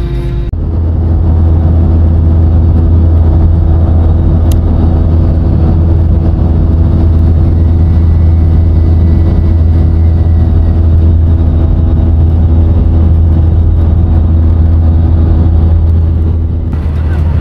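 Airbus A321-200 jet engines heard from inside the passenger cabin at takeoff: a loud, steady low rumble with a faint hum of steady tones over it.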